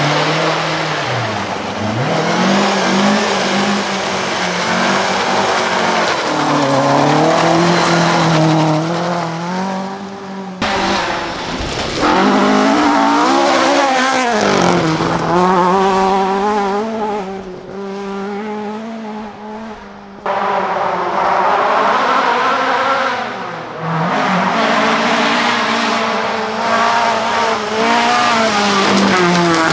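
Ford Escort Mk1 and Mk2 rally cars driven flat out on a gravel stage, engines revving high and dropping back again and again through gear changes and corners. The sound comes as several separate car passes with abrupt changes between them.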